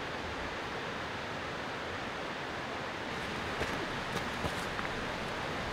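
Steady, even rushing outdoor noise, with a few faint clicks in the second half.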